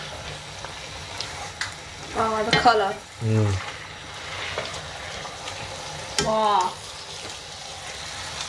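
Goat meat and onions sizzling in hot oil in a pot while a spatula stirs and folds them, with light clicks and scrapes of the spatula against the pot. Short pitched sounds break in twice, about two to three seconds in and again around six seconds in.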